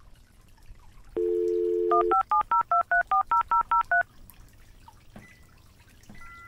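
Telephone dial tone for about a second, then a quick run of about ten touch-tone keypad beeps as a number is dialed.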